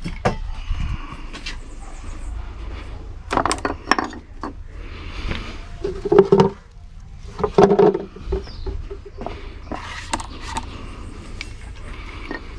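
Irregular knocks, clicks and clatter, like tools and materials being handled on a workbench, over a low steady hum, with two short pitched sounds around the middle.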